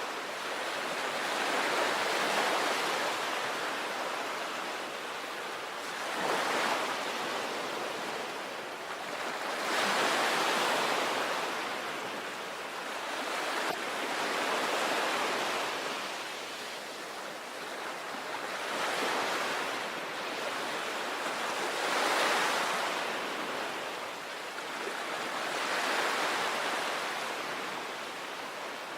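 Sea waves breaking on a beach, a continuous wash of surf that swells and eases with each wave, roughly every three to four seconds.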